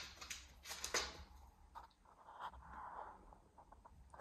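Faint clicks of a dog's claws on a hard floor, with soft sniffing at a plush dog bed about two to three seconds in.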